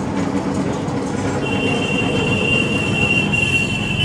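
Steady low rumble of a gas-fired kadhai of milk and its motor-driven stirrer. A high, steady squeal joins about a second and a half in.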